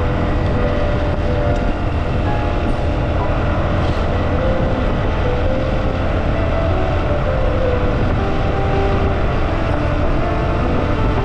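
Riding a motorcycle at road speed: a steady mix of engine, wind and road noise that does not let up.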